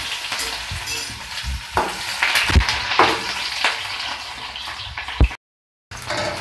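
Sliced onions and garlic sizzling in hot oil in an aluminium kadai, with a steel ladle scraping and knocking against the pan several times as they are stirred. The sound drops out completely for about half a second near the end.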